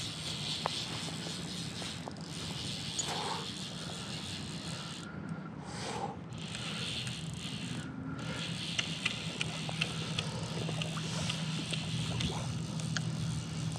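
Fly reel ticking in short runs while a hooked fish is played on a bent spey rod, over a steady low motor hum.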